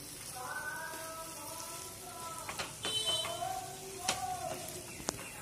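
Wooden spatula stirring cooked pulao in a nonstick pan: soft rustling of the rice with a few light knocks of the spatula against the pan.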